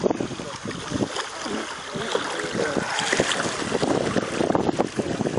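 Small river waves lapping and slapping against the plastic hull of a Perception Patriot 8.6 sit-on-top kayak, in a quick, irregular run of splashes, with wind buffeting the microphone.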